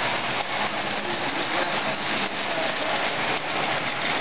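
Model electric train running along metal toy track, with a steady noise of wheels rolling on the rails and faint irregular clicking.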